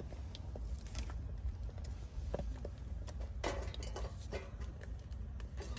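Small oak logs burning, crackling and popping irregularly over a steady low rumble, with a louder rustle about three and a half seconds in.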